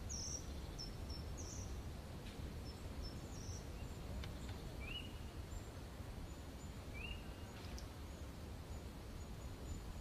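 Quiet outdoor ambience: a steady low background rumble with faint high bird chirps, and two short rising calls about five and seven seconds in.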